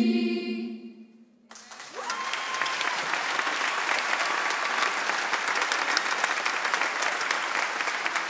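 A choir's final held chord fades out within the first second; after a brief lull, an audience breaks into sustained applause.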